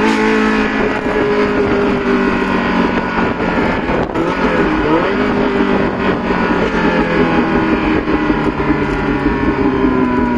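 Ferrari Mondial 3.2's V8 through a custom exhaust, heard from inside the cabin at cruising speed. It holds fairly steady revs, and the pitch drops gently near the end as it eases off.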